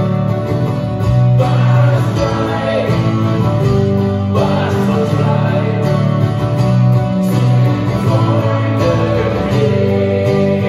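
Live acoustic duo: two acoustic guitars strummed and picked through a PA, with a man singing over them.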